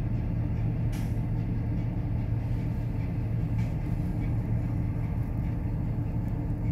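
Steady low rumble and hum of a bulk carrier under way through sea ice, heard from inside the ship's superstructure, with a short click about a second in.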